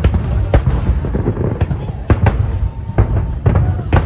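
Aerial fireworks exploding, with sharp bangs about twice a second over a steady low rumble.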